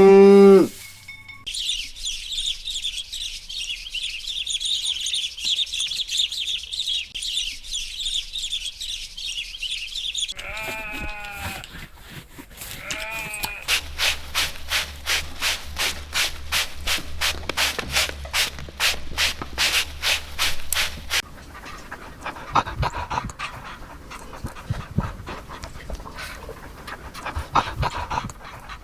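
A series of different animal calls, one after another: the end of a cow's moo at the very start, then high chirping, short bleat-like calls, and a fast rhythmic pulsing of about three to four a second.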